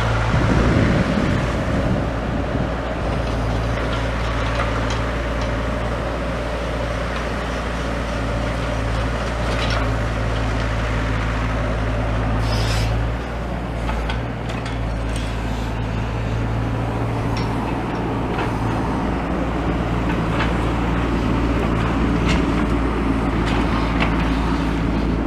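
Diesel engine of a small demolition digger running steadily, with scattered knocks and clatter from material being handled.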